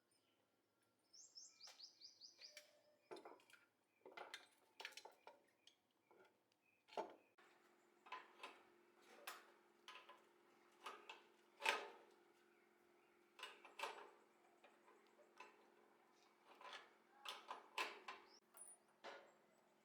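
Faint, irregular clinks and knocks, like small metal parts or tools being handled. A low steady hum starts about seven seconds in.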